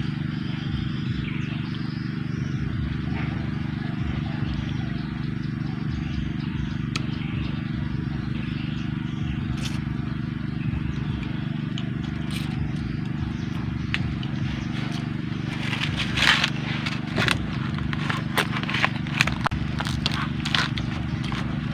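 A person eating noodles with crispy pork: chewing, with a run of sharp, irregular crunchy clicks in the last several seconds. A steady low hum sits under it throughout.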